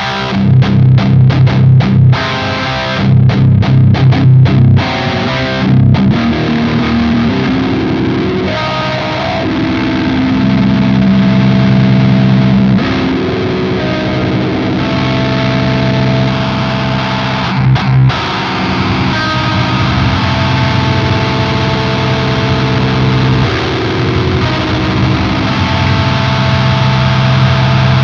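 Heavily distorted electric guitar riffs in the Swedish 'chainsaw' HM-2 style tone, from a Lichtlaerm Audio Medusa pedal into a Peavey 6505 amp. Short, tight chugs that cut off sharply for the first few seconds, then longer held chords and single notes.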